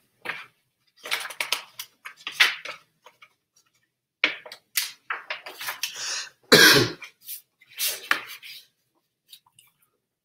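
A man coughing, in about six short bursts with pauses between them; the loudest comes a little past the middle.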